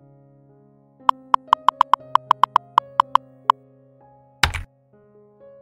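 Soft synthesizer background music. About a second in comes a quick run of about a dozen keyboard-typing clicks as a sound effect, roughly five a second for two and a half seconds. A short swoosh follows near the end.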